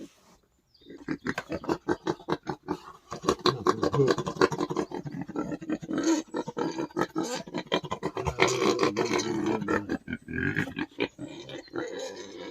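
Wild boar grunting in rapid, short pulses, a steady stream of grunts and snuffles after a brief quiet at the start.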